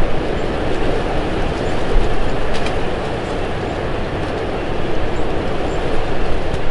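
Strong wind buffeting the microphone: a steady rushing noise with a heavy low rumble that swells and eases in gusts.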